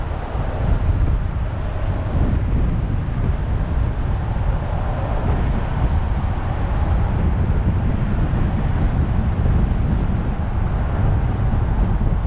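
Steady road and wind noise of a car being driven: a constant low rumble, with no distinct engine tone or separate events.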